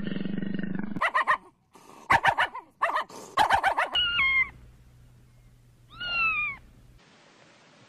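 Kittens meowing: two separate meows, one at about 4 s that steps down in pitch and one at about 6 s that falls. Before them, a quick run of short sharp animal calls, and a steady low drone during the first second.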